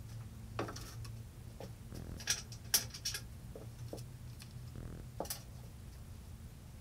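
Scattered light clicks and taps, about eight of them at uneven spacing, from small hardware being handled and set down on the table saw's metal table top during assembly, over a low steady hum.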